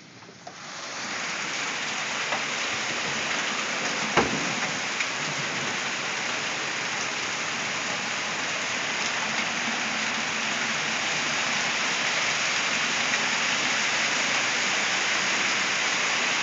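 Heavy rain pouring down steadily, swelling up within the first second and then holding, with a single sharp knock about four seconds in.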